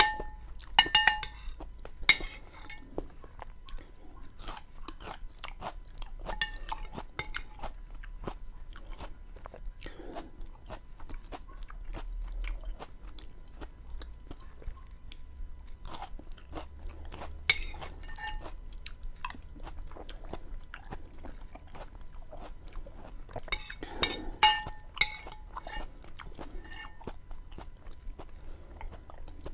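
Close-miked chewing and wet mouth sounds from eating a Chilean bean stew (porotos with onion and tomato): a steady run of short smacking clicks. A few short ringing clinks come near the start, at about 18 s and around 24 s.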